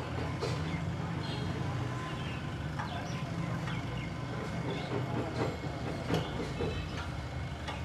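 A steady low mechanical hum with scattered clinks and knocks, like tools being handled on metal.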